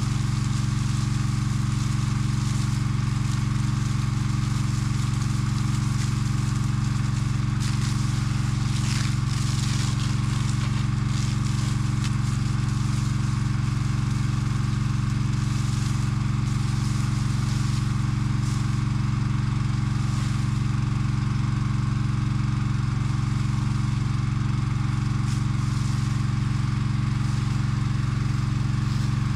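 Engine of a firefighting pump rig on a Yanmar C30R crawler carrier running steadily at a constant speed while the pump feeds a fire hose spraying water, with a faint hiss above the engine hum.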